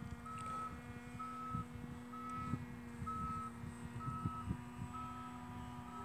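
A single-pitch electronic beep repeating about once a second, over a steady hum and irregular low rumbles.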